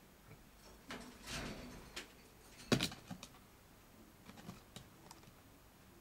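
A common marmoset climbing onto and grabbing at a camera: a string of taps, knocks and rustles from its hands on the camera body and lens, the loudest knock a little under three seconds in.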